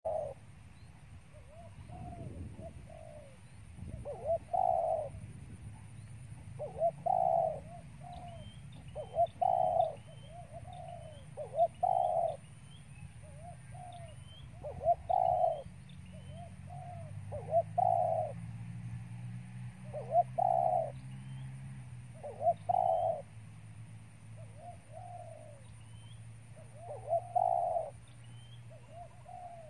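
A dove cooing over and over, a short phrase every two to three seconds, with faint high chirps behind it.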